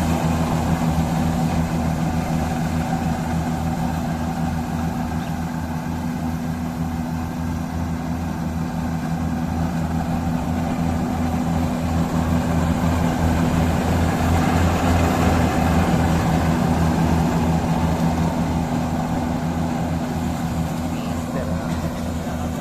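Kubota DC-60 rice combine harvester's diesel engine running at a steady speed, a low, even engine sound with no changes in pitch.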